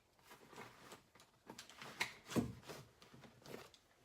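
Hand tools being handled and rummaged out of a tool bag: a string of light clicks, knocks and rustles, loudest about two seconds in.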